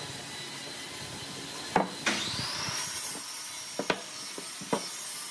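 Cut pine pieces knocking and rubbing as they are pulled apart and set down on a wooden workbench, with a few sharp knocks. About two seconds in, a high machine whine rises and then holds steady.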